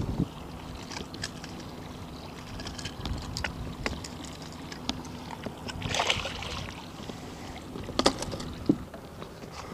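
Metal pliers clicking on a lure and its hooks as a pike is unhooked, with a short splash about six seconds in as the fish goes back into the water. Sharp clicks near the end, over a faint steady outboard motor hum.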